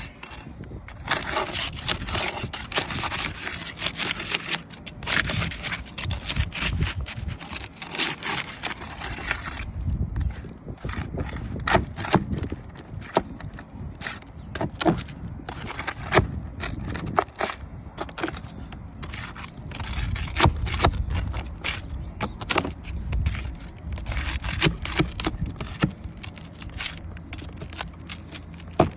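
Small hard objects being handled: scraping with many sharp irregular clicks and light rattles.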